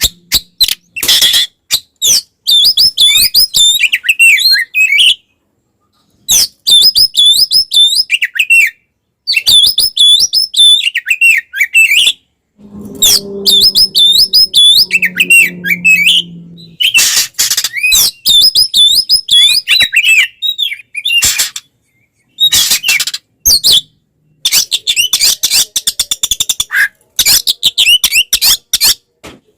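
Oriental magpie-robin (kacer) singing in fast, looping chirped phrases, the agitated fighting song used to provoke other kacer, in runs of a few seconds broken by abrupt silences. A low drone sounds under the song for a few seconds near the middle.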